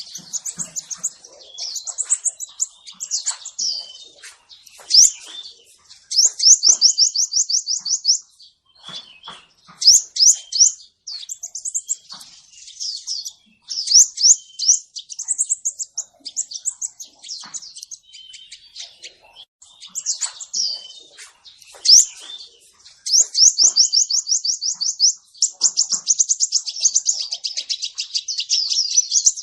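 Male crimson sunbird singing: high, thin chirps and squeaky notes mixed with rapid trills of fast repeated notes, coming in bursts of a second or two with short pauses between.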